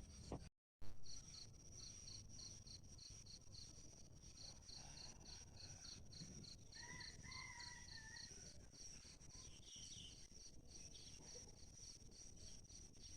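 Insects chirping, a high continuous trill with a regular pulsed chirp about three times a second. A faint bird call comes about seven seconds in, and near the start the sound briefly cuts out and ends in a click.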